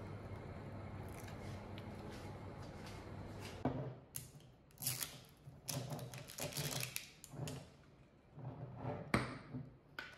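Hot water pouring from an electric kettle into a mug as a steady hiss, then about four seconds in a run of sharp clicks and knocks as a jam jar's lid is twisted and the jar is handled on a table, with one loud knock near the end.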